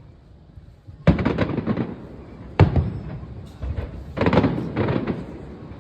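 Display fireworks going off: a sharp bang about a second in followed by crackling, another bang a second and a half later, then a cluster of bangs and crackle near the end.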